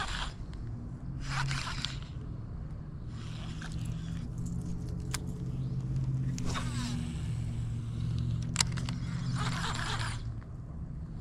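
A motor vehicle's engine running steadily as a low hum, swelling slightly in the middle. Over it come several short rustling scrapes, each under a second, and two sharp clicks.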